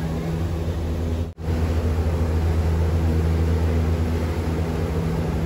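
Cruise boat's engine running steadily as a low drone, with water rushing in its wake. The sound drops out for a moment about a second and a half in.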